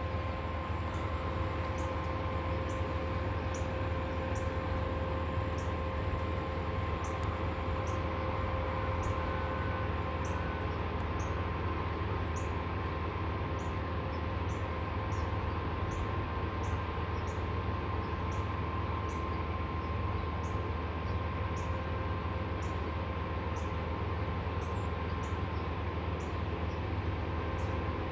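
Wood chipper running steadily, a low rumble with a steady whine and a short high squeak repeating about once a second, the sound that earns it the name creepiest sounding wood chipper.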